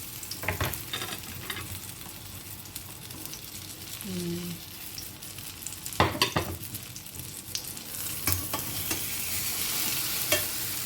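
Egg-coated eggplant omelette frying in oil in a pan, a steady sizzle, with a few sharp knocks of a utensil against the pan, the loudest about six seconds in.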